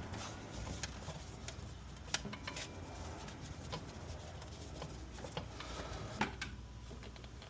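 Scattered light clicks and knocks of hand tools and engine parts being handled, over a low steady rumble.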